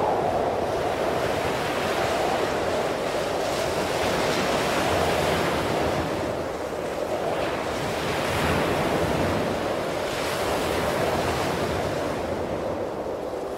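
Atlantic surf washing onto a sandy beach, a steady rushing that swells and eases every few seconds, with wind on the microphone.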